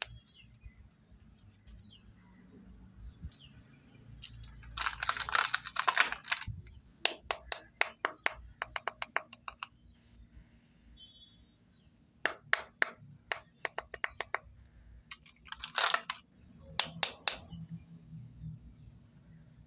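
Hard plastic toy cosmetic pieces clicking and tapping as they are handled and set down, with two longer spells of rustling, one about five seconds in and one near sixteen seconds.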